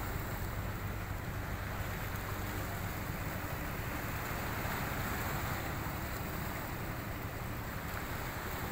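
Steady wind buffeting the microphone, with sea waves washing against the breakwater rocks.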